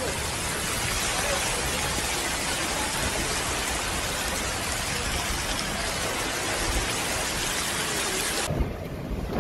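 Steady, dense rush of floodwater streaming down a flooded street in a heavy storm, a hissing wash of water. It cuts off abruptly near the end.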